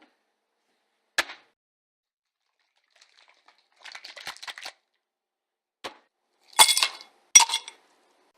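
Hard pieces dropped into a drinking glass, clinking against it: a sharp clink, a short rattle, another click, then two loud ringing clinks near the end.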